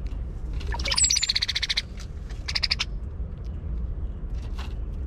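Brown-headed cowbird giving a harsh, rapid rattling chatter, the female's call, twice: a longer burst about a second in and a shorter one soon after.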